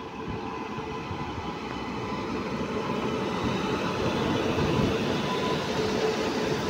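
A WAP-7 electric locomotive hauling a passenger train runs past close by, with a rumble of wheels on rail and a steady hum, growing louder as the locomotive and first coaches go by.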